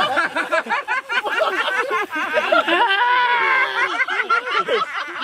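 Several people laughing and chattering over one another. One voice holds a long, high, drawn-out sound for about a second, a little past the middle.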